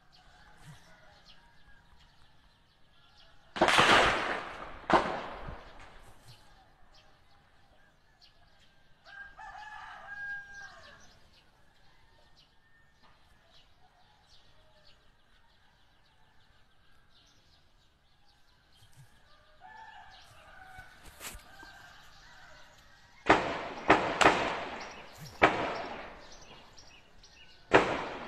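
Gunshots cracking out across the town, each trailing off as it echoes: two about four and five seconds in, then a burst of about five in the last few seconds. A rooster crows once, fainter, in the quiet between them.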